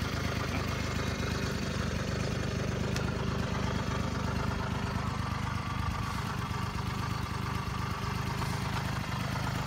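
1981 Honda PA50 moped's small two-stroke single-cylinder engine idling steadily, nice and quiet after its restoration.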